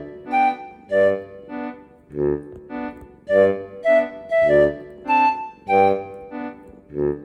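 Background music played on an organ-like keyboard, with short, bouncy notes in an even rhythm of about two a second.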